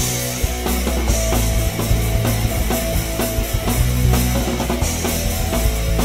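Rock music with a steady drum beat and a heavy bass line, laid over the footage as a soundtrack.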